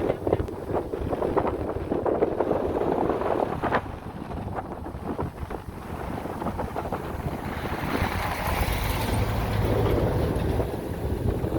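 Wind buffeting the microphone over the low rumble of heavy machinery, which swells louder about two-thirds of the way through.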